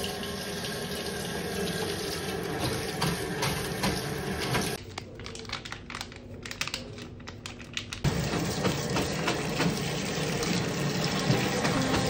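Tap water running from a faucet into a stainless steel utility sink onto a mop head, the flow louder and splashing from about two-thirds of the way through.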